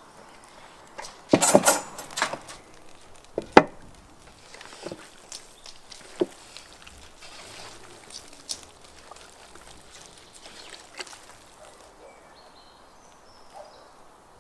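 Metal skewers and meat being handled as the marinated meat is threaded onto skewers: a burst of clatter a second or two in, a sharp knock a little later, then scattered small clicks and rustles.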